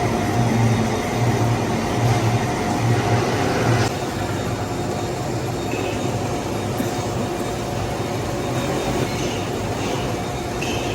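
Metal lathe running while turning a bronze bush, with a steady hum and a low rumble that pulses in a regular beat and then drops away about four seconds in.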